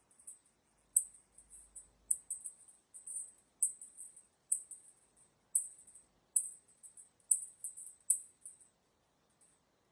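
Light, sharp clicks and taps at irregular intervals, roughly one a second, with faint scratchy rustling between them, as small wooden pieces are handled and fitted.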